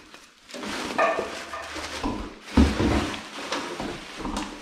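Plastic film and cardboard packaging being crinkled and pulled off a new stainless steel sink: irregular rustling and crackling, loudest a little over halfway through.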